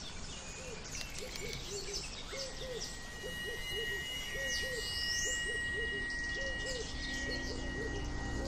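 Birds calling in forest ambience: a low hooting call repeated in short groups, about two a second, with higher chirps and whistles over it. A thin steady high tone comes in about two seconds in.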